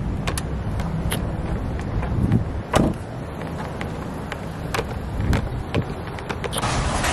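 A car door shuts with a single solid thud about three seconds in, over a steady low rumble of outdoor traffic. Small clicks and knocks of handling are scattered around it. Near the end the rumble gives way to a brighter, even hiss.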